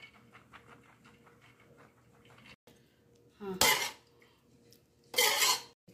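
Light patter of boiled rice being spread into a metal cooking pot, then two short loud scrapes of a metal utensil against the pot, about a second and a half apart.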